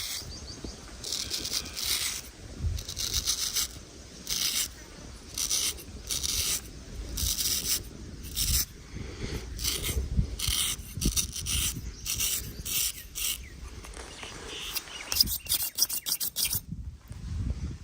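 Razor scraping over skin and stubble in repeated short strokes, roughly one or two a second.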